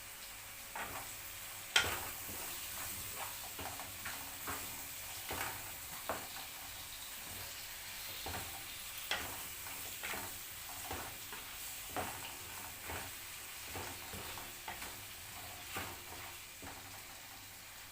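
A utensil scraping and knocking against a frying pan as onions, spices and tomatoes are stirred, over a steady faint sizzle. The strokes come about once a second, the sharpest a knock about two seconds in.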